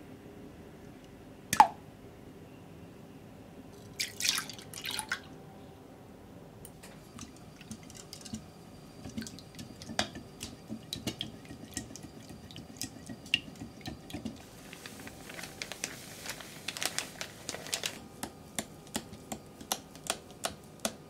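Pancake batter being made in a plastic mixing bowl. An egg is tipped in with a sharp plop near the start, then a silicone whisk stirs the wet batter, making irregular wet clicks and taps against the bowl that come thicker near the end.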